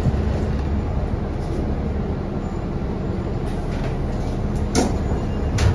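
Inside a 2018 New Flyer XD40 diesel city bus: the engine runs with a steady low hum and rumble. Two sharp knocks come near the end, about a second apart.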